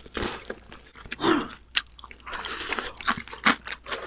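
Crispy fried chicken being bitten and chewed close to the microphone, a run of irregular crunches and crackles from the fried coating.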